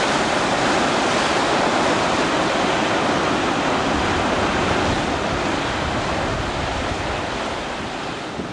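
Ocean surf: a steady, loud rush of breaking waves that slowly fades over the last few seconds.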